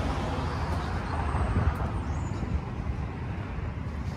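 Street traffic noise, a passing car's sound fading away over the first two seconds, over an uneven low rumble of wind on the microphone.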